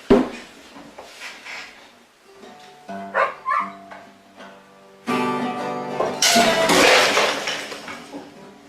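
Guitar music: a few plucked notes, then fuller and much louder from about five seconds in, fading near the end. A sharp knock at the very start.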